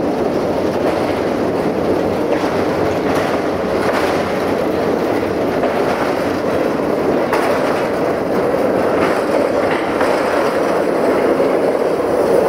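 A train of rail-carrying flat wagons rolling past close by, its wheels rumbling steadily on the track with scattered clacks over the rail joints.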